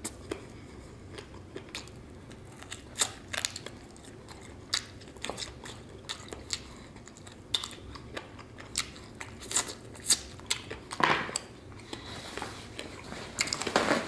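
Close-miked chewing and biting of fried chicken wings: scattered sharp crunches and wet mouth clicks over a low steady hum, with a paper napkin rustling near the end.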